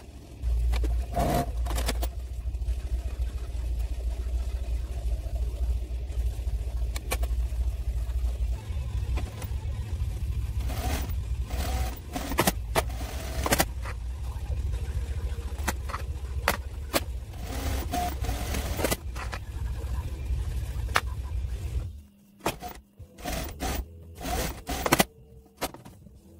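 Industrial sewing machine running with a steady low hum, over scattered clicks and rustles of the lace and tulle being handled. The hum stops about 22 seconds in, leaving only sporadic clicks.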